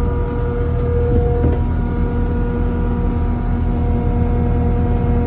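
Kubota diesel engine of a Takeuchi TL12 tracked compact loader running steadily, heard from inside the cab. A steady whine over the engine changes to a lower tone about a second and a half in.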